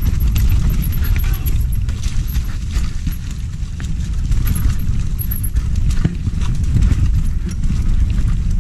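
Mountain bike riding down a rough, rutted dirt trail: a heavy low wind rumble on the microphone under tyre noise on dirt, with rapid clattering knocks and rattles from the bike over the bumps.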